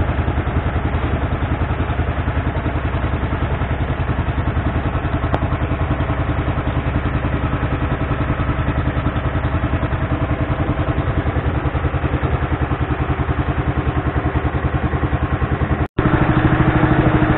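Small river boat's motor running steadily with a fast, even pulse. The sound drops out for an instant near the end and comes back a little louder.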